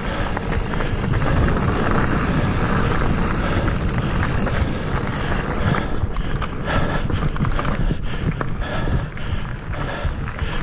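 Mountain bike riding fast along a dirt singletrack, with wind rumbling on the camera's microphone over the tyre and bike noise. From about six seconds in, sharper clicks and knocks come through.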